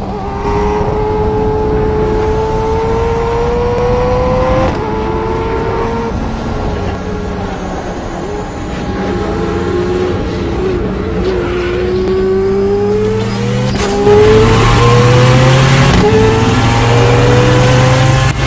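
Race car engine accelerating hard through the gears: the pitch climbs steadily and drops back at each upshift, once about five seconds in and again about two thirds of the way through, where it gets louder.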